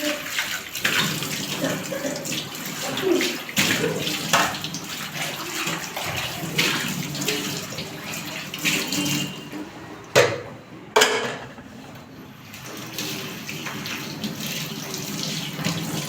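Tap water running and splashing in a sink while dishes are washed, with frequent clatter of dishes and pots; two louder knocks come about ten and eleven seconds in.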